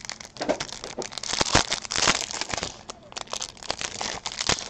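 Trading cards and clear plastic packaging being handled: a crinkling, crackly plastic rustle, densest from about one to two and a half seconds in, mixed with sharp clicks and taps of cards.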